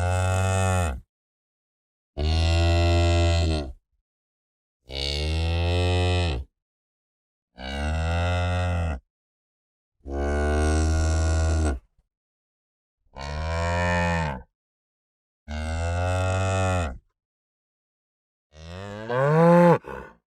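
Cow mooing: about eight separate low moos, each around a second and a half long, with silent gaps between them. The last one, near the end, is louder and rises higher in pitch.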